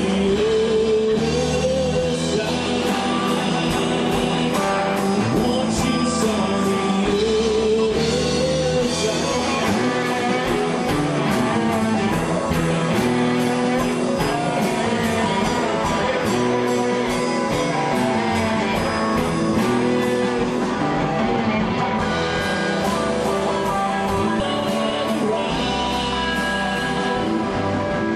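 Rock band demo recording: electric guitar over bass and drums, with a steady cymbal beat and bending guitar lines.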